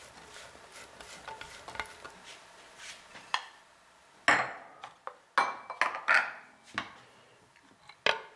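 Faint scraping and light patter as cubed cheese is pushed off a plate into a wooden bowl with a silicone spatula, then about six sharp clacks of dishes and utensils being handled, starting about halfway through.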